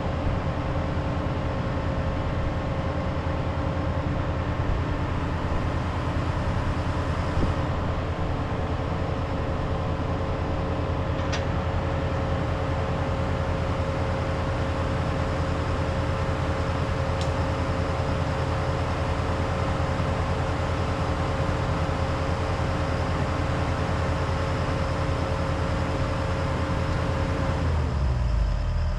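Heavy equipment engine running steadily, with a steady tone above the drone. The tone cuts off about a second before the end, and the low engine sound changes there.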